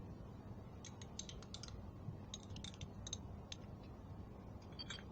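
Faint light clicks and taps of a kitchen utensil against a bowl as mayonnaise is added to the mixture, coming in a few quick clusters.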